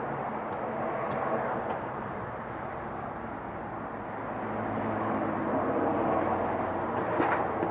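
Distant engine noise: a steady rumble that swells about five to six seconds in and then eases off, with a few light clicks near the end.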